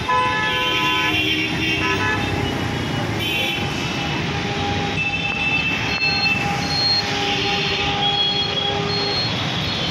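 Jammed road traffic of autorickshaws, motorbikes and cars running, with horns honking: one right at the start and again about two seconds in, and others in the middle. Near the end a short high beep repeats about twice a second.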